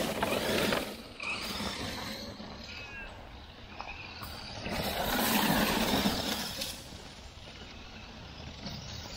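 A 1/10 RC monster truck with a stock 550 brushed electric motor driving over wood-chip mulch, the motor running and the tyres churning through the chips. It is loudest just after the start and again around five to seven seconds in.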